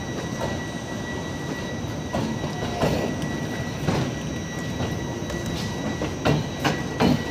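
LHB passenger coaches rolling slowly past as the train pulls out, with a steady rumble and irregular sharp clacks of the wheels over rail joints. A brief wheel squeal comes two to three seconds in.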